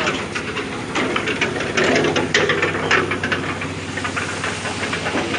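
An engine running steadily, with bursts of hissing noise, loudest around two to three seconds in.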